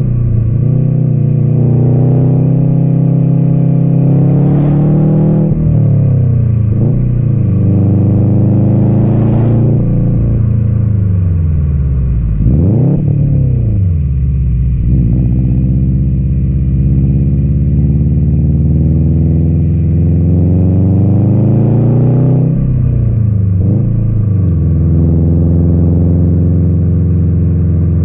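2020 Subaru WRX STI's turbocharged flat-four engine and exhaust under hard acceleration through the gears: the engine note climbs in pitch through three long pulls, dropping at each shift, with a brief hiss at the top of each pull. Near the end it settles into a steady cruise.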